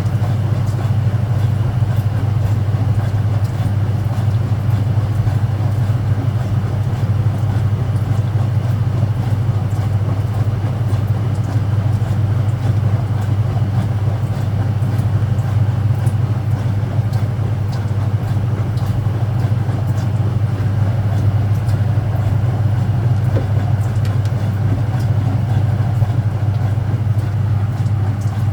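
Speed Queen top-loading washing machine spinning at full speed: a loud, steady hum from the motor and spinning drum, with faint scattered ticks over it.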